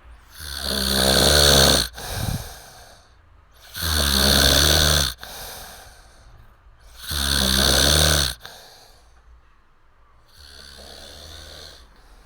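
A man snoring loudly: three long snores about three seconds apart, each lasting about a second and a half and cutting off sharply, with softer breathing between them and a fainter snore near the end.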